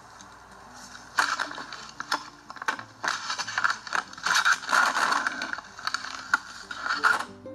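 A trail camera being jostled and turned about, giving irregular close scraping, crunching and knocking against its housing. The clatter starts about a second in and comes in quick, uneven flurries until just before the end.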